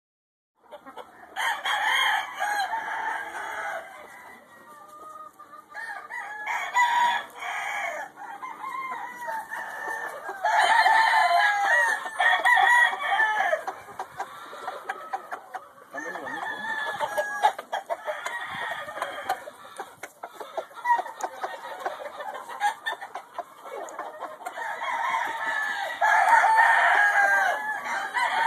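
Chickens in a pen: a rooster crowing several times, with hens clucking between the crows.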